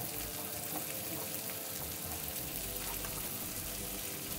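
Diced onion and chopped bacon sizzling steadily in hot bacon grease in an enameled cast-iron pot.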